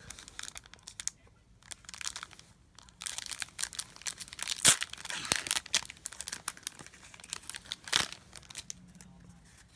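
Foil wrapper of a Pokémon trading card booster pack being crinkled and torn open, with irregular crackles and two loudest sharp snaps, one a little before halfway and one near the end.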